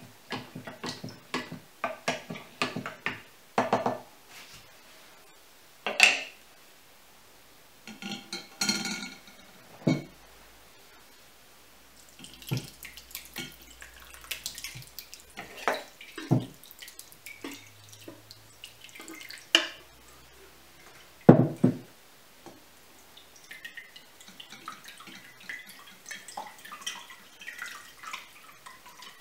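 A wooden spoon clinking and scraping in a glass jar of fermented grated apple mash, with a few sharp knocks. Then the mash and juice pour and splash into a cloth-lined metal sieve over a glass bowl, and near the end juice trickles and drips as the pulp is squeezed through the cloth.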